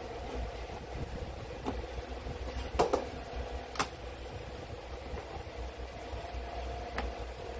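Utility knife cutting vinyl plank flooring: scraping with a few sharp clicks, the two loudest about three and four seconds in. A steady hum runs underneath.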